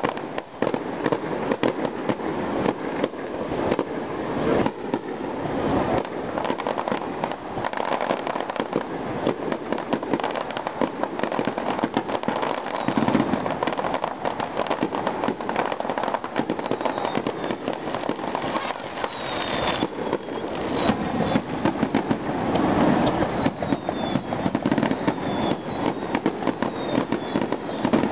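Aerial fireworks display: a rapid, continuous run of shell bursts and crackling. From about midway on, repeated whistles that fall in pitch.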